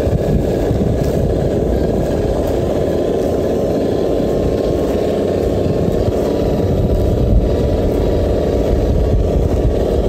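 Traxxas TRX-4 scale RC crawler driving slowly over sand, its brushless motor and drivetrain giving a steady hum with a faint thin whine over it.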